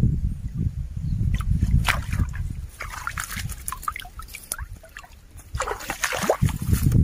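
A small hand net sloshing through shallow muddy water and being lifted out, with scattered splashes and dripping. A low rumble runs in the first two seconds and comes back at the end.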